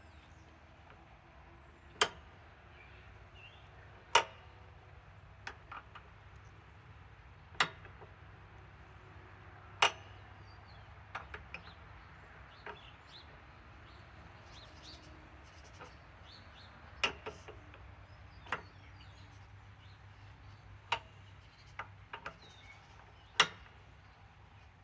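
Sharp single clicks and knocks, about a dozen of them at irregular gaps of one to three seconds, over a low steady hum.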